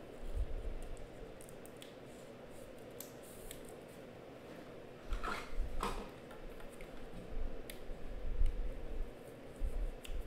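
A trading card being slid into a clear plastic sleeve and a rigid plastic top-loader by hand: plastic scraping and small clicks, with soft handling bumps and a louder scrape about five seconds in.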